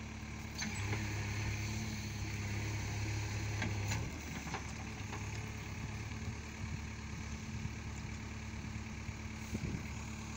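JCB 3DX Eco backhoe loader's diesel engine running steadily, its note heavier for about three seconds near the start before it settles back, with a few sharp clicks in between.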